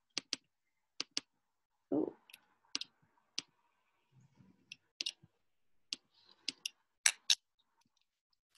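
Computer mouse clicking: sharp, separate clicks, often in quick pairs, a second or so apart. There is a short dull thump about two seconds in.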